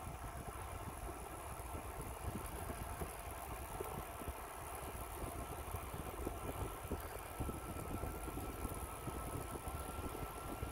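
Wind buffeting the microphone and tyre noise on asphalt from a bicycle riding along a road, with a faint steady high whine throughout.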